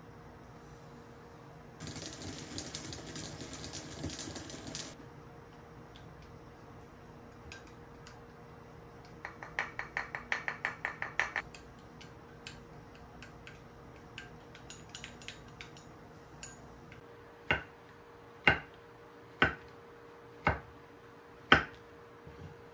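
A metal spoon stirring sauce in a small glass bowl, clicking quickly against the glass, then a kitchen knife slicing a shiitake mushroom on a wooden cutting board: five sharp chops about a second apart, the loudest sounds here. Earlier comes a few seconds of rough scratchy noise.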